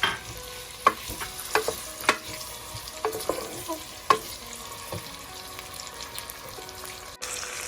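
Chopped onions frying in hot oil in a pressure cooker, sizzling steadily while a spoon stirs them and clicks sharply against the pot several times. Near the end the sizzle changes abruptly to a steadier hiss.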